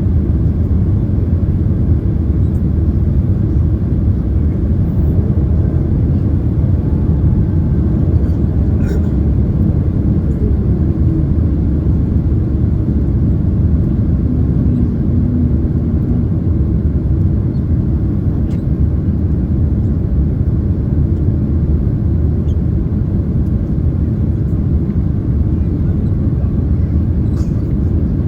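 Boeing 767-300ER cabin noise in flight: a steady, deep roar of the engines and the airflow, with a few faint clicks.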